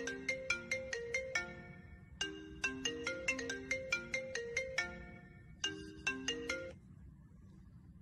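Smartphone ringtone playing: a marimba-like melody of quick struck notes, heard as three short phrases with brief gaps, then stopping about a second before the end.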